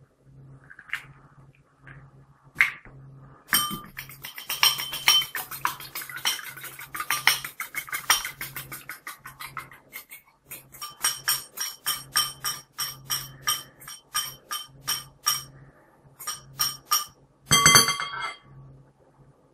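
An egg being beaten with a fork in a small ceramic bowl: rapid clicks of metal against the bowl in two spells, then a short clatter near the end as the egg is tipped into a glass bowl.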